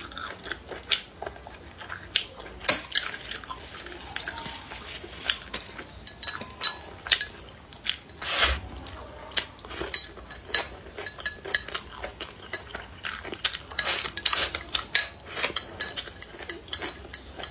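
Chopsticks clicking and scraping against a ceramic rice bowl held up to the mouth: many quick, irregular clinks as rice and greens are shovelled in.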